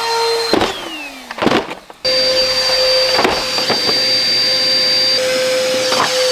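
Bissell PowerForce Helix vacuum cleaner motor running with a steady whine, then switched off about half a second in, its pitch falling as it winds down. It is switched back on about two seconds in and runs steadily again, with sharp knocks every second or so.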